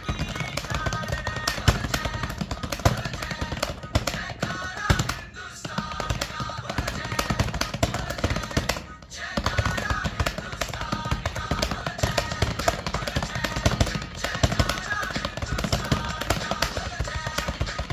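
Fast typing on a computer keyboard: a dense, unbroken rattle of key clicks, pausing briefly twice, with music playing underneath.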